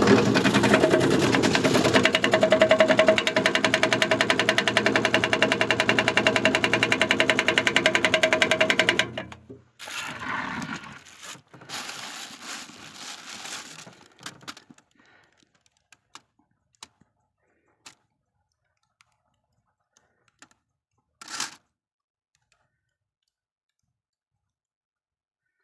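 Electric Korean-carrot shredding machine running with a steady motor hum and a fast, even rattle, then switched off about nine seconds in. Scattered light clicks and knocks follow, with one louder knock near the end.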